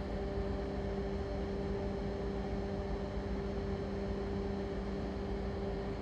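Steady hum of a ship's engine-room machinery, holding an even low tone and the tone an octave above it under a broad rushing noise, without change.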